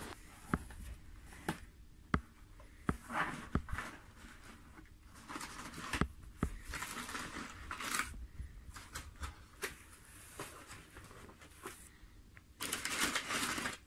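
A cardboard shipping box being opened by hand: scattered taps, scrapes and rustles as the flaps are handled, then near the end a louder stretch of packing paper crinkling as a hand reaches into it.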